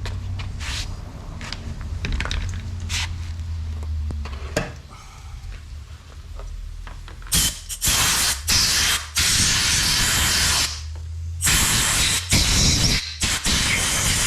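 Compressed air blown at the chainsaw to clean it, coming as a series of loud hissing blasts from about halfway on, each stopping sharply. Before the blasts there is a low hum with a few faint clicks.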